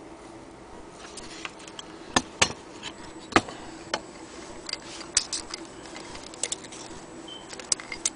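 Irregular sharp clicks and taps, unevenly spaced, from a Plato flip carriage clock being handled, over a faint steady hum.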